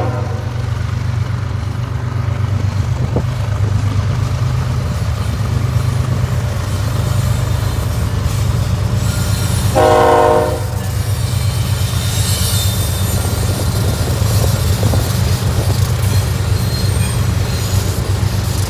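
Diesel locomotive passing with its engine running steadily under the rumble of the train. About ten seconds in, the locomotive gives one short blast on its multi-tone air horn. A high wheel squeal follows briefly after it.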